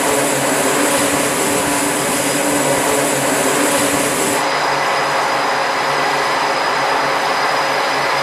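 Jet aircraft engines running on a carrier flight deck: a steady, loud roar with several held whining tones. About four and a half seconds in the sound changes and turns duller, losing its hiss at the top.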